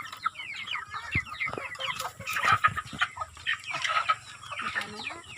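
A flock of broiler chickens clucking and cheeping over one another, with a few short knocks among the calls.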